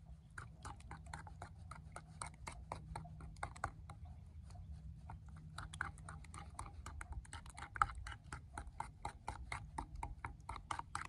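A spoon clicking and scraping against the side of a porcelain bowl while stirring a thick sauce, a quick run of light clicks about four or five a second.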